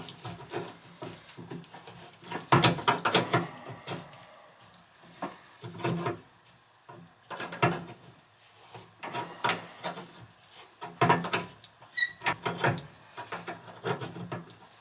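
Irregular clicks, knocks and scrapes of hand tools on the metal fittings of an old laundry tub faucet as it is worked loose for removal, with a short metallic ping about twelve seconds in.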